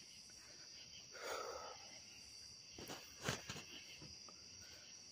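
Steady high-pitched chorus of night insects. About a second in there is a short rustle, and around three seconds in a few sharp knocks.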